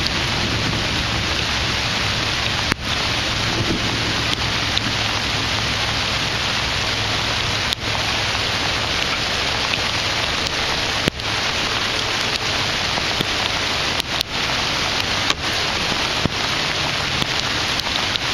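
Steady rain falling on the water and the boat, a dense even hiss, with a faint low hum under it for the first half.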